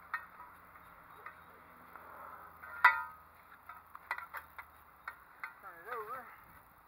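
Metal tube frame of an elevated dog cot knocking and clicking as it is handled and turned over, with one sharp clang about three seconds in that rings briefly.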